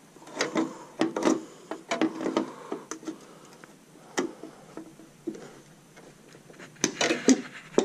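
Irregular clicks and knocks of a hand and a hand tool working at the plastic clips and fittings around a car's headlight, with a louder cluster of knocks near the end.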